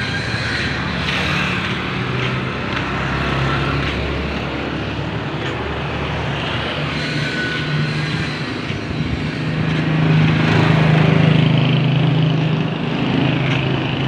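Street traffic: vehicle engines running past, with one passing vehicle growing louder about ten seconds in and fading after.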